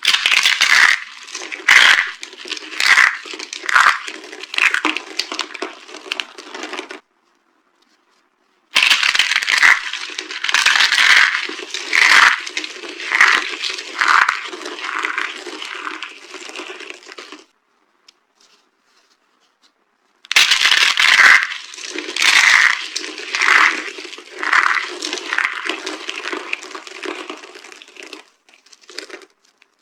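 Dry soap boxes being crushed, crunching and crumbling in three runs of sharp crunches about one a second, with short silences between the runs.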